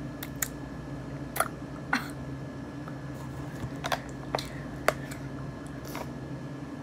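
Mouth sounds of chewing honeycomb: about ten short, sticky, wet clicks and smacks, irregularly spaced, over a steady low hum.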